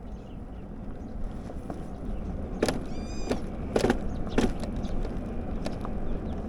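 Wind and road rumble while riding an electric scooter downhill, with a few sharp knocks and a brief high squeak in the middle.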